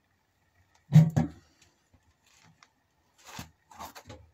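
Handling noise: one loud thump about a second in, then a few short scrapes and rustles as a sharpening file and sickle are picked up and handled.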